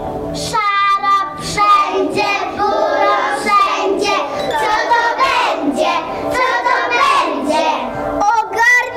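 A group of young children singing together, starting about half a second in, after a held instrumental chord.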